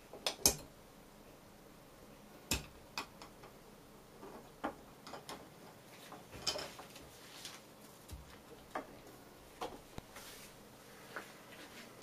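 Sharp plastic clicks and knocks as the snap-on cover frame of a wall light switch is pried off and handled. The loudest pair of clicks comes about half a second in, and scattered clicks follow every second or so.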